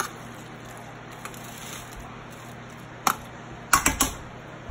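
Serving spoon knocking and clicking against a metal baking pan as creamy macaroni is spread and smoothed. There are a few sharp knocks bunched together about three to four seconds in.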